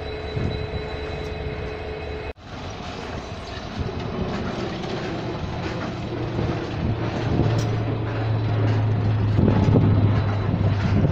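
A heavy engine's low drone that grows steadily louder over the second half. The sound cuts out abruptly for a moment about two seconds in.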